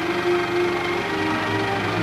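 Film soundtrack music played from a 70mm print, with sustained notes that shift to a lower pitch about a second in, over the steady running noise of a Cinemeccanica 35/70mm projector.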